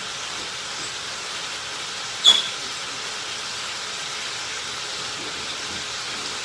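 Mixed vegetables sizzling steadily in a frying pan, with one sharp clink about two seconds in.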